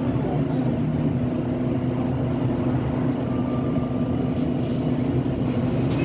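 Volvo B9TL double-decker bus running steadily, its engine and drivetrain drone heard from inside the lower deck, with a faint thin high tone for about a second midway. The bus has picked up a slightly annoying hoover-like sound.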